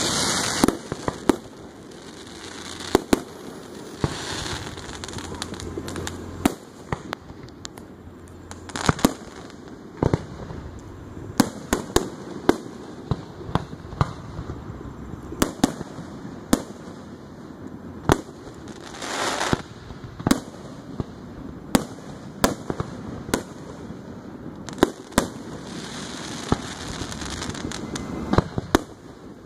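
Aerial fireworks shells bursting: a long run of sharp bangs at irregular intervals, some in quick pairs, with a few longer stretches of hiss and crackle between them.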